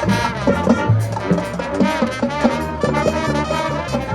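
High school marching band playing, brass carrying the melody over regular drum beats.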